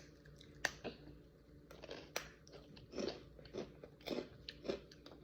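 A person chewing a crunchy rice cracker close to the microphone: a run of irregular crisp crunches with short pauses between bites.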